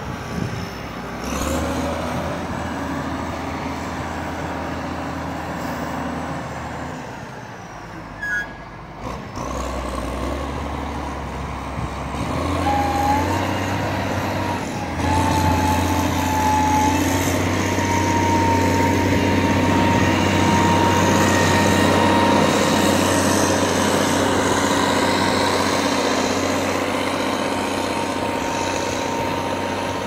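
The diesel engine of a snow-clearing motor grader runs steadily as it works snow. It gets louder from about halfway as the machine comes close, with a steady high whine from its equipment.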